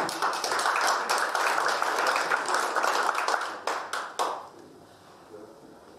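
Audience applause, many people clapping for about four seconds, thinning to a few last claps before it stops.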